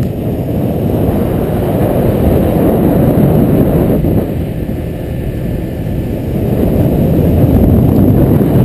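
Loud, irregular low rumble of wind buffeting an action camera's microphone on an open boat.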